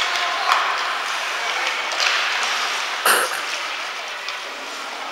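Ice hockey game on the rink: skates scraping and sticks and puck clicking on the ice, with a louder bang about three seconds in.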